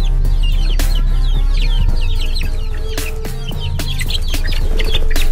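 Young chicks peeping over and over in short, quick, falling chirps, over background music with a heavy bass.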